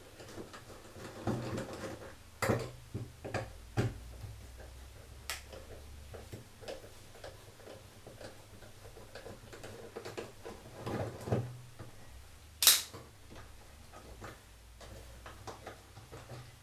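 Scattered clicks and knocks of tools and small metal parts as the old door hinge is worked off a Candy washer-dryer. A single sharp click about three-quarters of the way through is the loudest.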